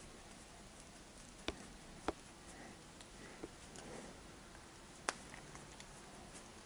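Tools and small parts being handled: four sharp clicks and taps spaced a second or more apart, with a soft rustle between them.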